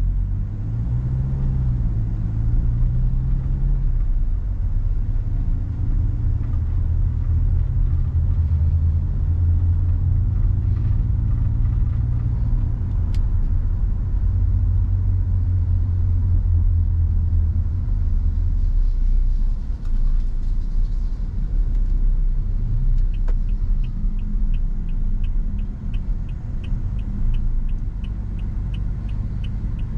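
Cabin sound of a Toyota Innova Venturer's 2.0-litre petrol four-cylinder under way: engine and road rumble, with the engine note rising and easing in the first few seconds. In the last several seconds a regular turn-signal ticking comes in, about three ticks a second.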